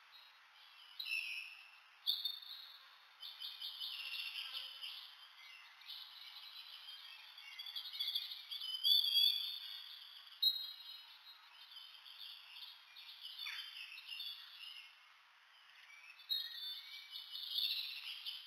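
High, twittering bird-like chirps and trills, coming and going in short spells.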